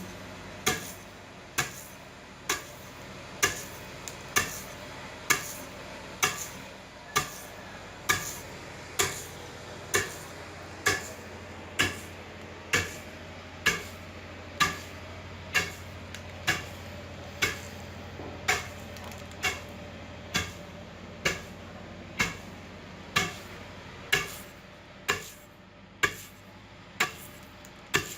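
Sharp knocks, evenly spaced at a little more than one a second, over a low steady hum.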